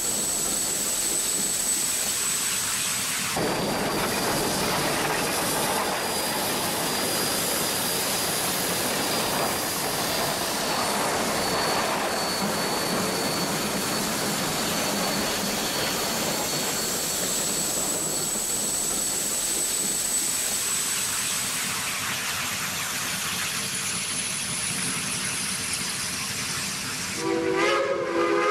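Steady hissing throughout, like steam escaping. About a second before the end a steam locomotive whistle starts to blow, several notes sounding together.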